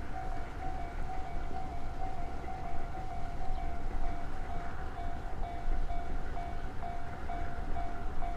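JNR Class D51 steam locomotive running, a low rumble throughout, with a steady high tone over it that breaks off and resumes about two to three times a second.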